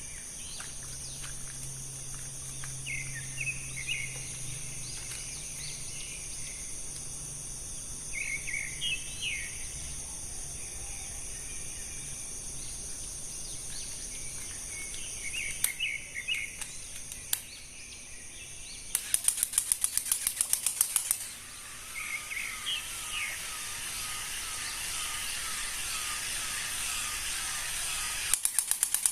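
Outdoor ambience: birds chirping in short repeated phrases over a steady high-pitched hiss. About 19 seconds in there is a spell of rapid clicking, and it comes back near the end.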